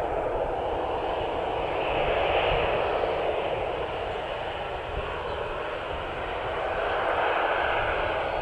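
Boeing 737 jet engines running, a steady rushing noise without a clear whine that swells twice, about two seconds in and near the end.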